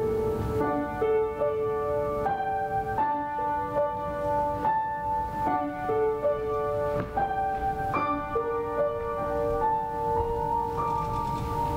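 Slow instrumental keyboard music, piano-like, with held notes whose pitch changes about once a second.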